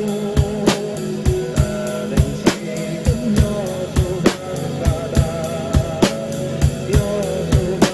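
Drum kit played along to a pop song's instrumental break: a steady kick-and-snare beat under a guitar melody.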